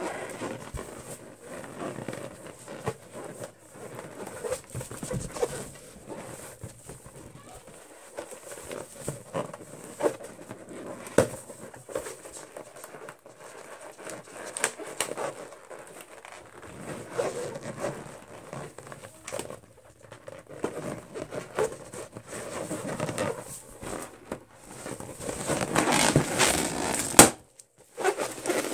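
Fingernails scratching, rubbing and squeaking over a taut inflated latex balloon in short, irregular strokes. Near the end the scraping grows louder and denser, and one sharp loud snap stands out.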